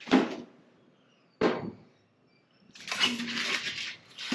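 Two metal lid latches on a marine-grade portable grill being snapped open, two sharp clicks a little over a second apart, followed by a second or so of rustling and scraping as the grill is handled.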